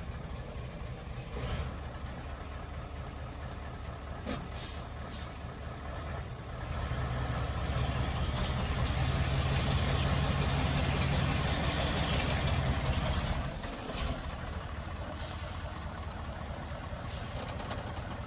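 Heavy logging truck's engine running, then working harder under load for about seven seconds in the middle before easing back. A few short knocks or clanks are heard now and then.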